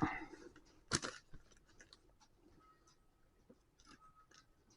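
Plastic Lego pieces being handled, with one sharp click about a second in and a few small ticks and rattles as the model is turned over.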